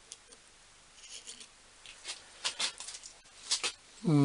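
Scattered small metal clicks and brief light scrapes as a measuring tool is worked against a steel boring bar while it is measured, with a voice beginning at the very end.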